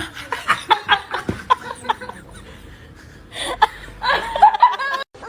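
A person laughing, a quick run of short chuckles followed by higher, wavering laughter near the end.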